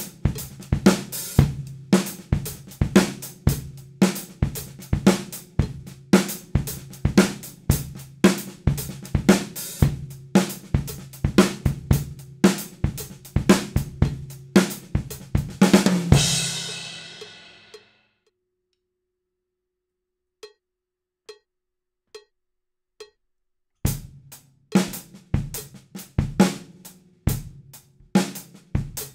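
Acoustic drum kit played in a funk groove, with snare, bass drum, hi-hat and Istanbul cymbals. About 16 seconds in, a final cymbal crash rings out and fades. For about six seconds only faint regular ticks are heard, then the groove starts again.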